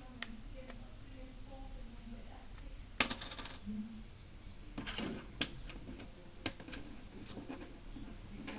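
Small metal parts and tools clinking and tapping on a hard work surface during a phone teardown. There is a short jingling clatter about three seconds in, then a few more clicks and taps a couple of seconds later.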